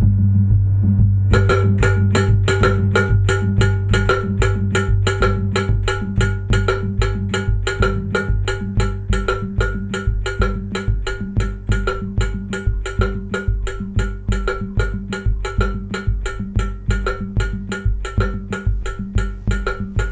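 Electronic music played on synthesizers: a steady low bass drone with a pulsing bass note over it. About a second in, a fast, evenly repeating percussive note joins and runs on as a quick pattern.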